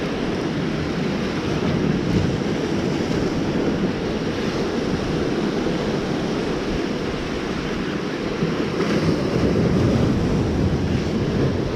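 Sea surf washing and breaking over jetty rocks, a steady rushing noise, with wind buffeting the microphone.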